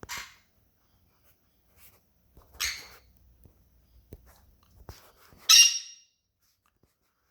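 Small pet parrot giving three short harsh calls: one at the start, one about two and a half seconds in, and the loudest about five and a half seconds in.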